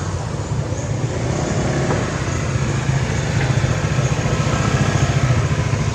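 A motor vehicle engine running steadily: a low rumble, slightly louder after the first second, with faint short high chirps repeating above it.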